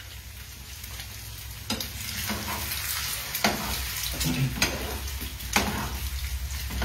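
Egg and potatoes frying in oil in a pan, sizzling steadily as they are stirred with a spoon and a spatula, with a few sharp knocks of the utensils against the pan. Chicken nuggets fry in a second pan alongside.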